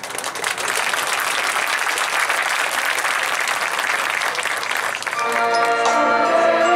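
Crowd in the stands applauding, then about five seconds in the marching band comes in with a louder held chord.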